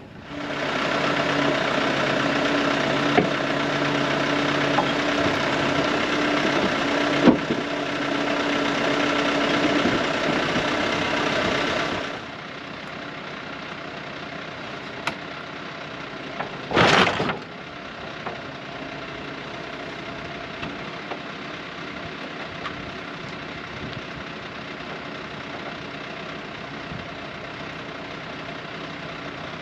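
A motor running steadily, loud for about the first twelve seconds, then dropping suddenly to a quieter steady hum. A single loud, short noise comes about seventeen seconds in.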